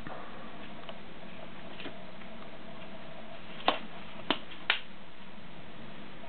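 Three sharp clicks, about half a second apart, over a steady background hum.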